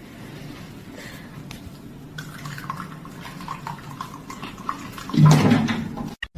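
Water running and splashing, with a louder sudden sound about five seconds in.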